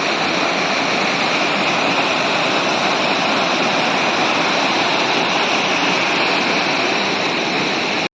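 Loud, steady rush of falling water.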